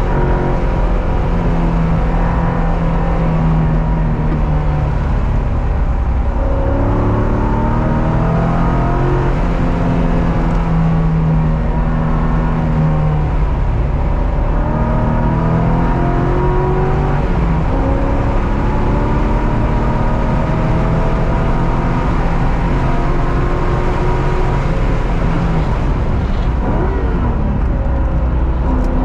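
Car engine being driven hard on a race track, its pitch repeatedly climbing under acceleration and dropping off between gears and for corners, over a constant rumble of road and wind noise.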